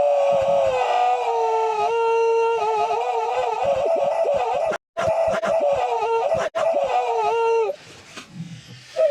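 A man's crying, digitally stretched and stuttering into a held, horn-like tone that steps between a few pitches. It cuts out briefly twice, about five and six and a half seconds in, and drops away to something much quieter near the end.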